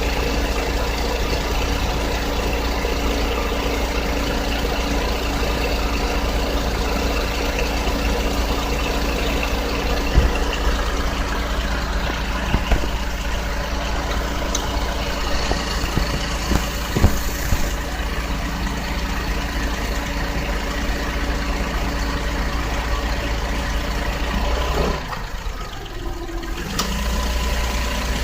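Nissan Otti (H91W) kei car engine idling, heard at the engine bay, carrying an abnormal noise from the engine room. A few sharp ticks stand out in the middle, and the sound drops for about two seconds near the end.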